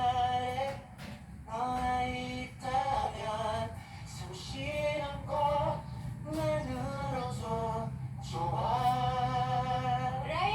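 Background music with a singing voice holding long, steady notes over a low accompaniment, the melody stepping from note to note with short breaks between phrases.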